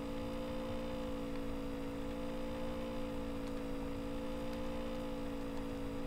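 Steady electrical mains hum in the recording: a few low pitches held together without change, with a couple of faint clicks.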